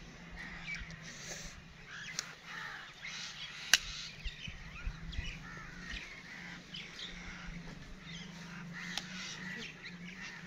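Crows cawing and other birds calling, over a faint steady low hum. About four seconds in there is a single sharp snap, hoof nippers cutting into a cow's hoof horn, with a couple of smaller clicks around it.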